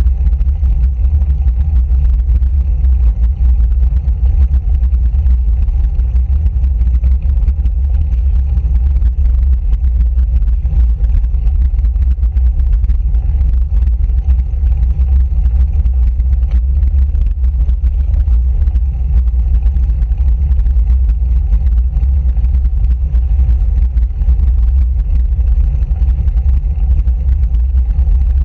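Wind buffeting the microphone of a handlebar-mounted camera on a moving road bike: a steady, loud low rumble.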